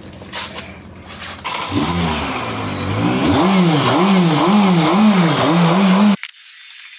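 Car engine revved again and again through its modified exhaust, the pitch rising and falling about twice a second, then cut off abruptly about six seconds in.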